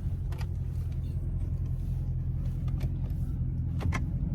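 Steady low rumble of a car running, heard from inside the cabin, with a few faint clicks.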